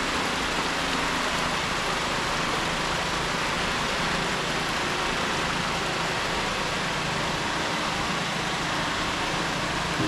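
Small garden waterfall: a steady, even rush of water falling over rocks.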